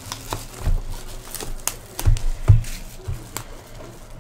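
Foil trading-card packs and cardboard hobby boxes being handled and set down on a table: a few soft thumps, with light taps and crinkling between them.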